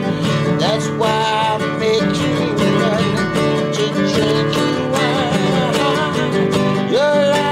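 A man singing a melody while strumming a nylon-string classical guitar.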